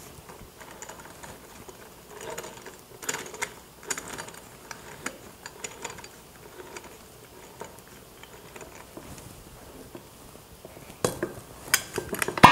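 Stainless-steel winged corkscrew opening a wine bottle: soft metallic scrapes and small clicks as the worm is twisted into the cork and the wings and handle are worked. A run of sharper clicks and knocks comes near the end.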